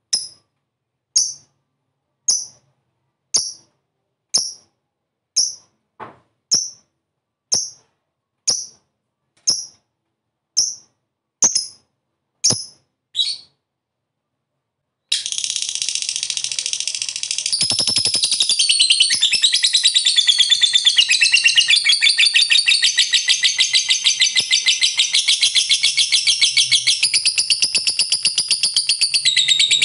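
Lovebird giving about a dozen short, sharp single calls roughly a second apart. About fifteen seconds in it breaks into a long, unbroken, rapid high chattering trill: the long 'ngekek' song that keepers prize in a vocal fighter lovebird.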